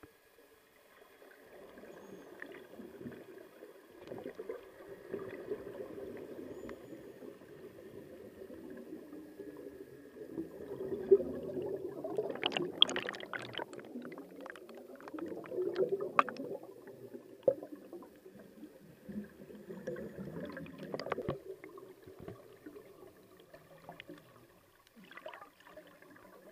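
Scuba exhaust bubbles gurgling, heard underwater through a waterproof camera housing: muffled and low, growing louder about halfway through and again later, with sharp clicks in the louder stretches.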